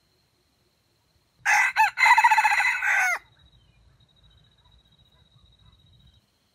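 Red junglefowl rooster crowing once, about a second and a half in: a short opening note, a brief break, then a longer note that drops in pitch at the end.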